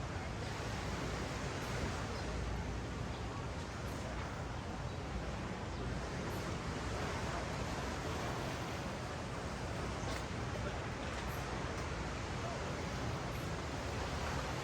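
Steady hiss of ocean surf washing onto a sandy beach.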